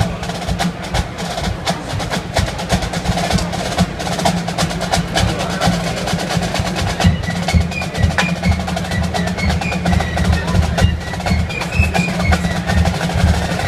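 Marching band drumline playing rapid snare-drum strokes and rolls over steady bass drums at the start of a field-show number, with high melody notes coming in about seven seconds in.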